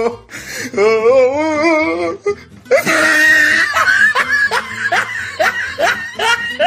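Meme sound-effect clip: a wavering voice for about a second, then loud laughter in quick repeated bursts with music.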